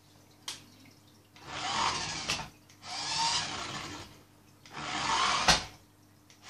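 A toy remote-control car's small electric motor whirs in three short runs of about a second each, with a sharp knock about five and a half seconds in.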